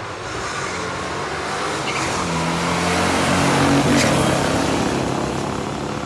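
A 1969 AMC SC/Rambler and a 1969 Dodge Super Bee, both V8 muscle cars, running a drag race at full throttle. The engine noise grows louder up to about four seconds in as the cars go past, then fades.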